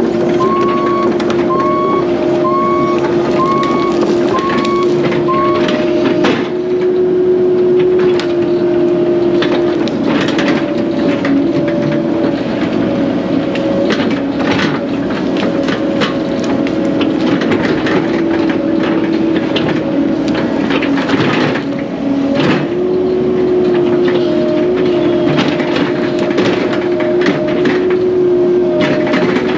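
Heavy land-clearing machinery running hard, its engine and hydraulics holding a steady pitch that sags under load in the middle, with frequent cracks and knocks. A reverse alarm beeps six times in the first few seconds.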